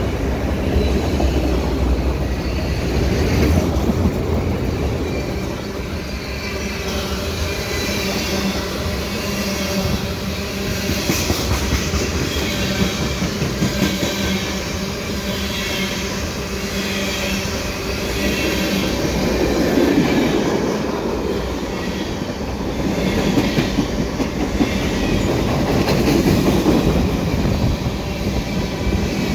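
Freight cars of a long mixed freight train rolling past close up: a steady rumble of steel wheels on rail with clickety-clack as the wheel sets cross the rail joints, swelling and easing as the cars go by.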